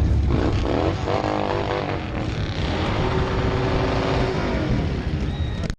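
Motorcycle engine pulling up in pitch as it accelerates, then holding a steadier note while cruising; the sound cuts off abruptly near the end.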